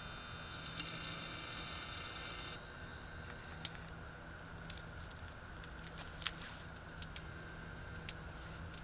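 A compact fluorescent tube overdriven on a 400 W high-pressure sodium ballast buzzes with a high-pitched whine, which cuts off suddenly about two and a half seconds in as the end-of-life tube goes dark. A low ballast hum carries on, and scattered sharp clicks follow from about three and a half seconds in.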